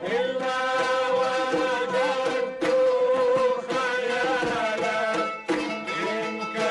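Traditional Kuwaiti sawt music from an ensemble of ouds and frame drums, with a melody of long held notes over the rhythm.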